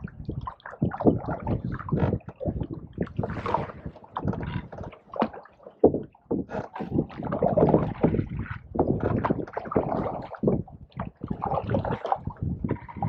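Canoe paddles dipping and pulling through pond water in irregular strokes, with splashing and gurgling along the hull.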